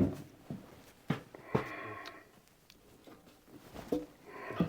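Scattered knocks and bumps from hand work at the wall, with a short scrape about one and a half seconds in, in a small room.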